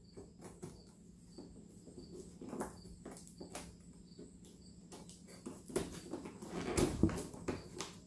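Packing tape on a cardboard box being slit open with a pointed tool: faint scratching and small clicks, busier and louder a few seconds from the end.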